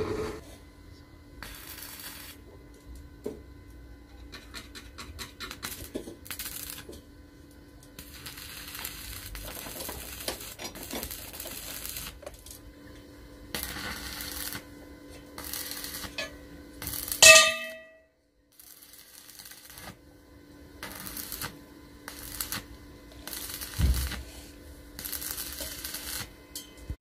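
Electric arc welding on steel box-section tube: the arc crackles and sizzles in a series of short bursts, one to a few seconds each, as the joints are tack-welded, over a steady low hum. About two-thirds of the way through, one loud, sharp metallic clang rings out.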